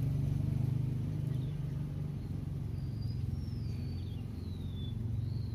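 An engine running with a steady low hum, a little louder in the first second, then easing. From about three seconds in, a bird gives several thin, high whistled notes that slide in pitch.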